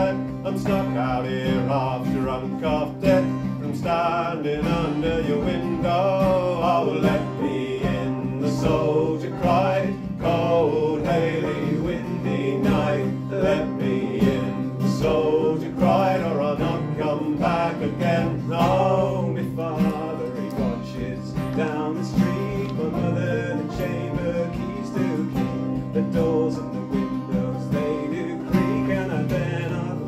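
Live acoustic folk music: two acoustic guitars and a banjo accompany a male voice singing a traditional song.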